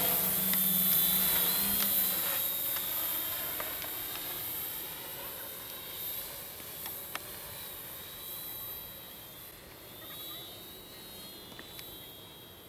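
Tarot 680 Pro hexacopter's six electric motors and propellers whining in flight, a high whine that wavers in pitch, fading steadily as the craft flies away.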